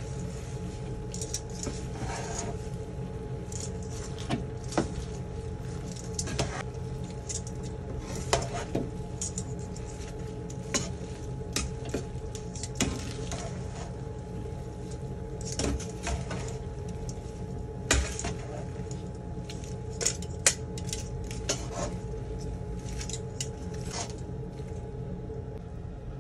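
Metal tongs and a wooden spatula tossing rice noodles and cabbage in a stainless steel pan, with irregular clinks and scrapes of the tongs against the pan. A steady low hum runs underneath.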